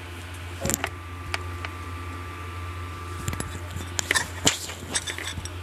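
Fork and ceramic dishes clicking and clinking as noodles are moved between bowls. There are a couple of sharp clinks about a second in and a denser run of them in the second half, over a steady low hum.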